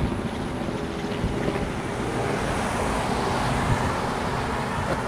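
Wind buffeting the microphone, a steady, gusty noise with an unsteady low end.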